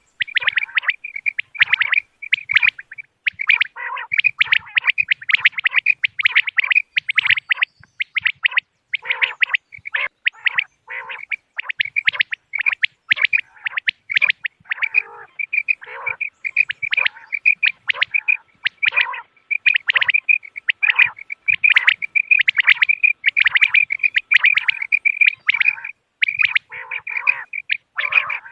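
Common quail calling: a dense, unbroken run of short, sharp high notes, with some lower, rougher notes mixed in.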